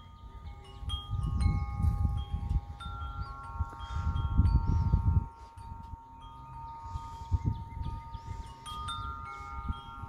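Wind chimes ringing, several notes struck again and again and left to ring on over one another. From about one to five seconds in, a low rumbling noise on the microphone is louder than the chimes.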